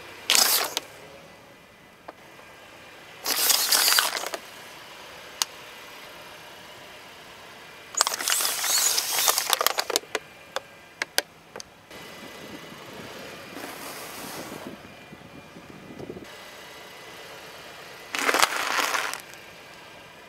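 Small plastic bottles of liquid being crushed under a car tyre: several separate bursts of crunching and cracking plastic a few seconds apart, the longest with sharp cracks. A low steady background runs between the bursts.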